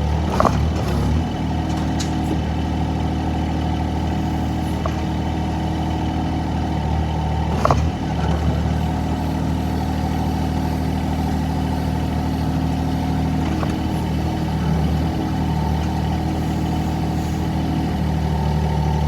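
Excavator engine running steadily, with a few sharp metallic clanks about half a second, two seconds and eight seconds in.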